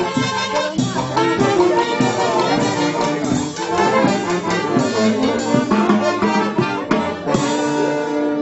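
Brass band music with a steady drum beat, horns playing held melody notes.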